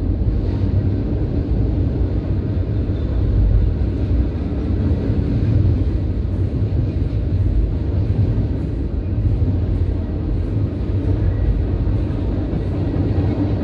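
Canadian National freight train's tank cars and hoppers rolling past at close range: a steady, loud rumble of wheels on rail.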